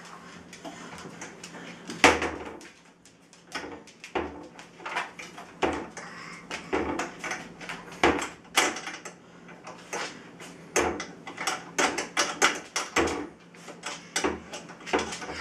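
Wooden kitchen cabinet doors being opened and knocked shut by a toddler's hands: a string of irregular knocks and clacks, sparse at first and then several a second, the loudest about two seconds in.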